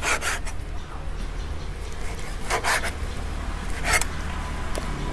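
A kitchen knife slicing raw pork on a plastic cutting board, the blade scraping through the meat and across the board in a few short strokes a second or two apart.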